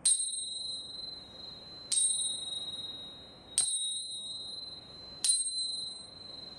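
Tingsha, a pair of small hand cymbals joined by a cord, struck together four times about every second and a half to two seconds. Each strike gives a bright, high ring that slowly fades.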